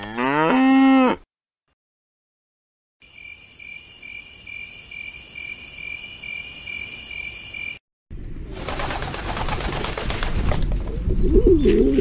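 A cow mooing once, its call rising in pitch and ending about a second in. After a silence, a steady high-pitched ringing with hiss runs for about five seconds. Then a flock of pigeons makes a dense rustling noise, with a coo near the end.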